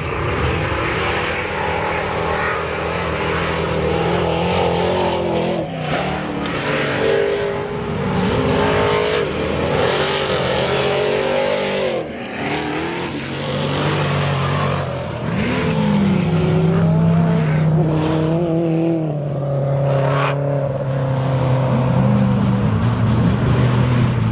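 Several offroad race trucks racing on a dirt track, their engines running hard, the pitch repeatedly rising and dropping with throttle and gear changes as they pass and pull away.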